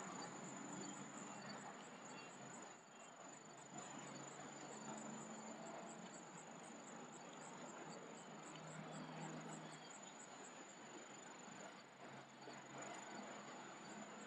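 Faint insect song: one steady, high-pitched trill held unbroken, over soft outdoor background hiss.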